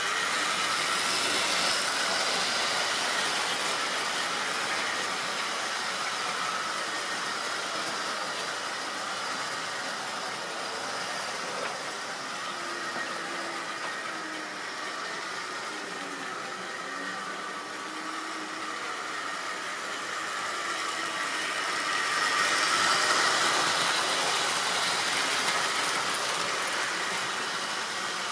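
Model railway goods train, a small tank locomotive hauling vans and tank wagons, running along the track with a steady whirr and rattle. It is quieter in the middle and grows louder again a little over three-quarters of the way through.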